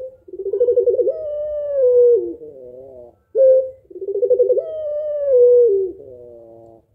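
Female puter pelung, a ringneck (Barbary) dove, cooing its long call twice. Each call is a short note, then a quick trilled run, then a long falling coo that wavers lower at the end.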